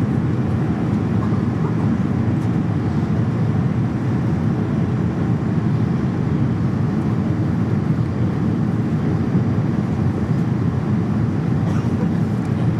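Steady low roar inside a jet airliner's cabin during descent: engine and airflow noise heard from a window seat.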